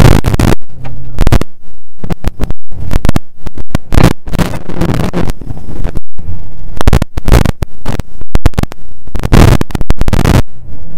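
Rally car at speed on a snowy gravel stage, heard through overloaded onboard audio: harsh, distorted engine and road noise that keeps cutting out to split-second silences and back in, many times over.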